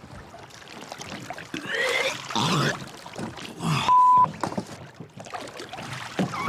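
A seasick man retching and groaning in the sea at a boat's side, with water lapping and splashing around him. About four seconds in, a short high bleep covers a word.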